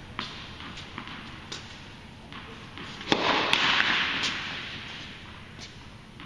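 Tennis balls being struck and bouncing in an indoor tennis hall: a few scattered sharp pops, then a louder impact about three seconds in followed by a noisy rush lasting about a second and a half.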